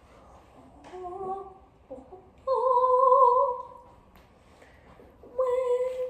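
A young woman's voice singing a short wordless tune in a few held notes, the longest about one and a half seconds, starting about two and a half seconds in.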